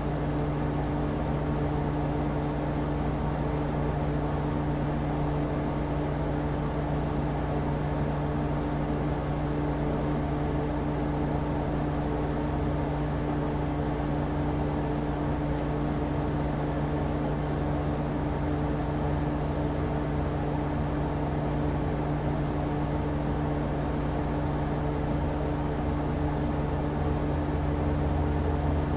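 Air conditioner running steadily: a constant low hum with a drone of fan and airflow noise.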